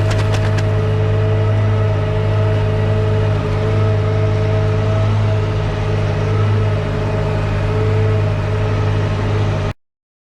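Tractor engine running near full revs under load, driving a feed mixer's augers through the PTO: a steady drone with a couple of steady whining tones over it. The sound cuts off suddenly near the end.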